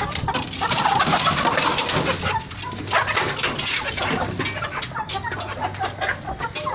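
A flock of young chickens, cockerels and hens, clucking and calling over one another in a pen.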